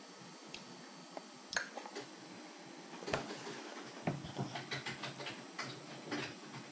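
Faint scattered clicks, taps and rustles that come more often from about three seconds in.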